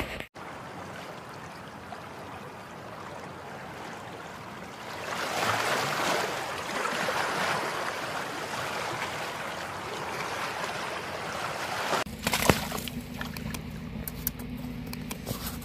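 Pond water splashing and churning as a hooked fish thrashes at the surface while it is brought to a landing net. The splashing grows louder about five seconds in, eases after about twelve seconds, and a few knocks follow near the end.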